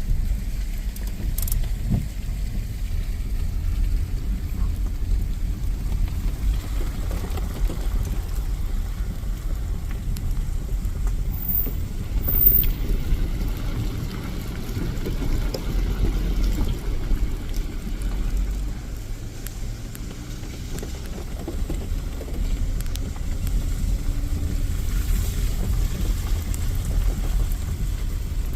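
A van driving, with a steady low rumble from the engine and road.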